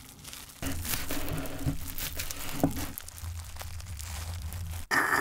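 Plastic cling film wrapped around a sandwich crinkling as it is handled and turned over in the hands: a run of small crackles that stops abruptly near the end.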